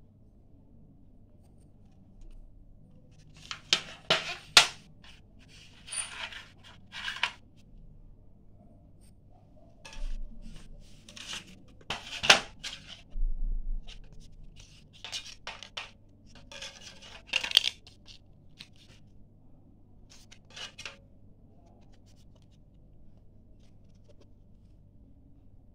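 Handling noises from a set-top box's plastic case and its plastic viewing card: irregular clicks and short scrapes in scattered clusters, the sharpest click about twelve seconds in.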